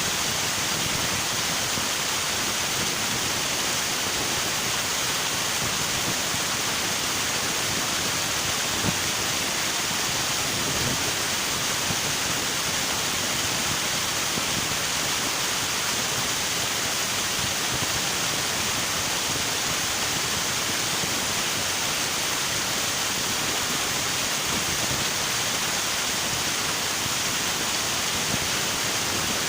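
River water flowing and rushing steadily, an even hiss-like wash with no breaks.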